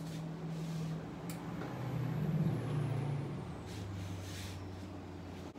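A low, steady motor-like hum that holds one pitch, wavers, then drops to a lower pitch and holds there, with a single light click about a second in.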